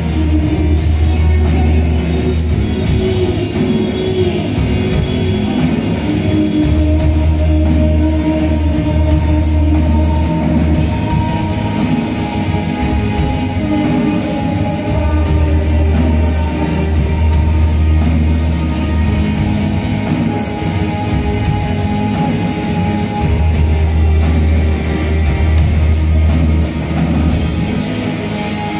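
Live dream-pop band playing: vocals over amplified electric guitars, drums and a deep bass line that comes and goes. It is heard through a phone's microphone from the audience in a concert hall.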